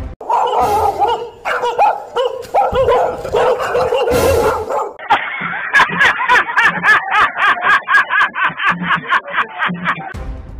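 Fake dog barking used to scare people: irregular barks at first, then from about five seconds in a fast, even run of barks, about four a second.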